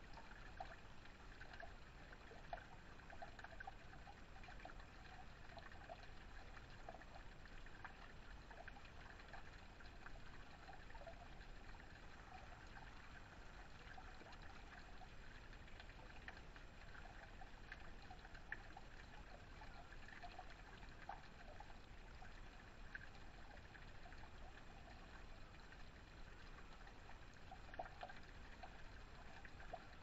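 Faint, steady trickle of water spilling off the lip of a small backyard waterfall spout.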